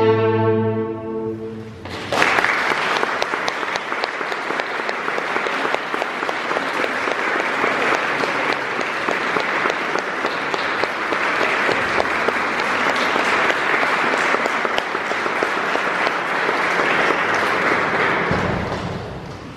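A chamber string orchestra's final chord held and dying away, then an audience applauding steadily for about sixteen seconds, tapering off near the end.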